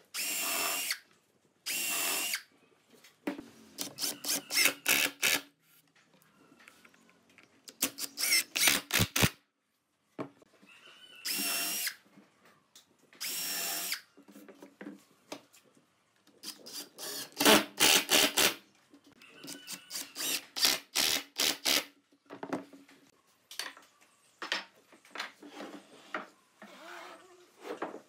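Cordless drill/driver driving screws into a wooden stool frame: short runs of motor whine, alternating with several runs of rapid sharp clicks and knocks, and a few scattered knocks near the end.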